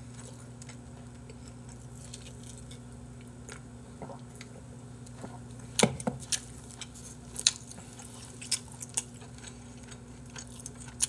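Scattered small clicks and taps of eating at a table: a drink can sipped and set down, and wooden skewers lifted off a plate. A steady low hum runs underneath.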